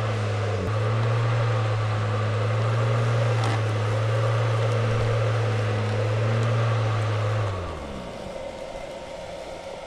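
A small motor hums steadily at a low pitch over a steady hiss. About seven and a half seconds in it winds down and stops, leaving the quieter hiss.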